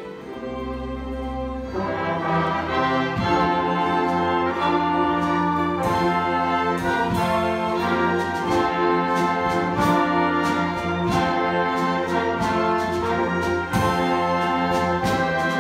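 Live community orchestra playing a Christmas medley arrangement: a softer passage with low held notes swells into the full ensemble about two seconds in, carried on a steady beat of accented strikes.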